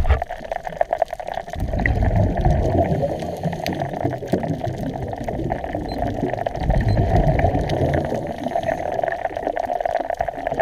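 Water bubbling and gurgling, with many small pops and two louder low surges, one about a second and a half in and another near seven seconds.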